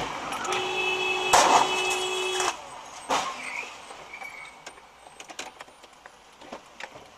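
Road collision: a car horn sounds steadily for about two seconds while a loud bang hits about a second and a half in, followed by a thud and then a quieter stretch of scattered small clicks and knocks.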